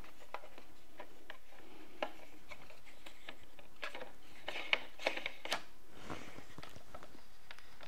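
Faint scattered clicks and light taps as a tripod head is twisted and threaded onto the top of a tripod, with a few sharper clicks a little past halfway.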